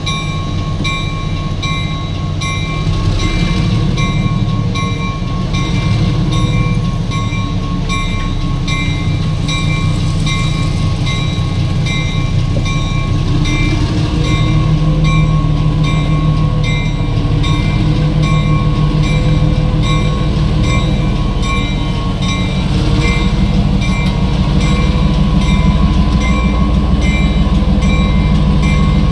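Diesel locomotive of a ballast work train running with a steady low engine drone. A high-pitched ringing repeats at an even, rapid rate over it.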